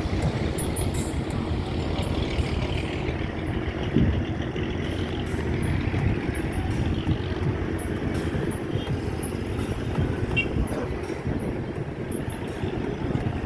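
Ferry's diesel engines running, a steady low rumble with a constant hum.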